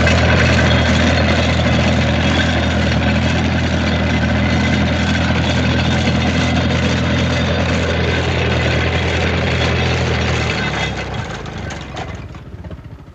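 Ferguson tractor engine running steadily, then switched off about ten seconds in, stumbling and running down until it dies away near the end.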